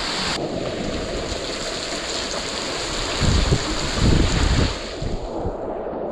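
Rushing whitewater of a river in spate, a steady roar of water, with low thumps of water and wind buffeting the microphone from about three to five seconds in.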